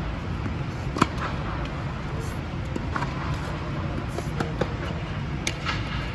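Tennis rally: sharp pops of rackets striking the ball and the ball bouncing on the hard court, about five in all, the loudest about a second in, over a steady low rumble.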